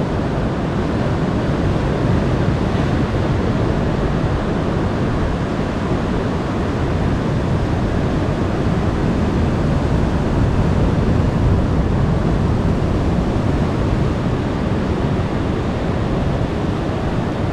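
Ocean surf breaking and washing around jetty rocks, with wind on the microphone: a steady rush of noise, heaviest in the low end.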